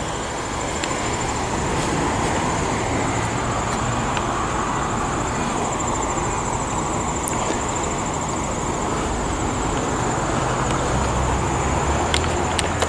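Steady street traffic noise, a continuous rumble and hiss with a thin high tone running through it; the low rumble grows a little stronger near the end.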